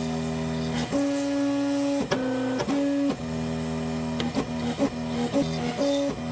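Stepper motors of a ShopBot Desktop CNC machine whining as the axes move, the hum jumping between a few steady pitches as the speed changes, over a steady high-pitched whine.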